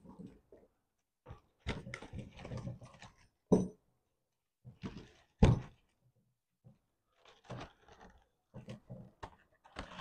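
Wires, tape and plastic connectors of a Toyota Prius wiring harness rustling and clattering as the bundle is pulled apart by hand, with two louder knocks about three and a half and five and a half seconds in.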